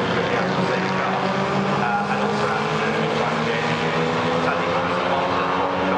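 Historic TVR racing car's engine running hard on the circuit, its pitch climbing slowly as it accelerates away.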